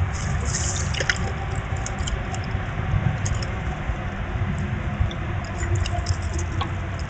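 Squirrels foraging, with scattered small clicks and rustles as they scramble over seed hulls and climb the feeder pole. Under them runs a steady low outdoor rumble.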